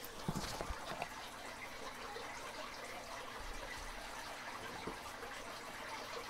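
A few light clicks and knocks in the first second as things are handled on a workbench, then a steady low hiss.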